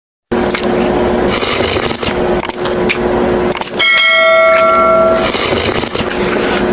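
A bright, bell-like ring, struck once about four seconds in and dying away over about a second and a half, over a steady hum and clatter.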